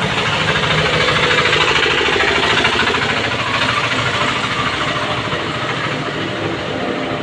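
Ride inside a moving toto, a battery-powered e-rickshaw: a steady, fast rattle of its open metal frame and body, with road and wind noise.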